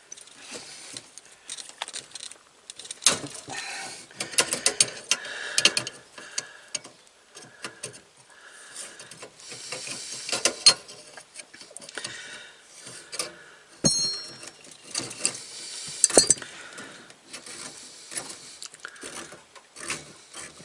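A spanner working a gas-pipe fitting on a camper fridge's burner: irregular metal clicks, scrapes and taps, with one short metallic ring about two-thirds of the way through.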